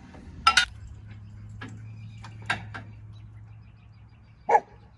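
A few sharp knocks and clunks as an engine block is worked down into a truck's engine bay onto its mounts, the loudest about half a second in and others about two and four and a half seconds in, over a faint low hum.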